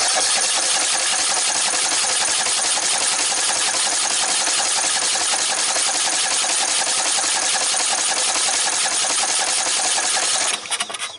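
Briggs & Stratton 14.5 hp lawn tractor engine cranking on its electric starter with the choke closed, in a fast even pulse. It does not catch, because fuel is not reaching the carburetor. The cranking stops, with a brief stutter, about ten and a half seconds in.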